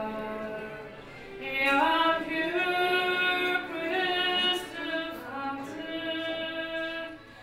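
A woman singing a slow song, drawing out long held notes, with a fresh phrase beginning about a second and a half in.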